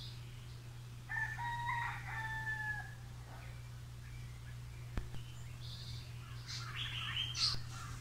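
A rooster crowing once, a long held call beginning about a second in, with a short burst of other bird calls near the end, over a steady low hum.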